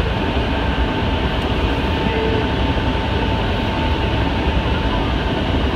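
Hankyu 7000-series train running at speed, heard from inside the carriage: a steady running noise with a faint steady whine through most of it.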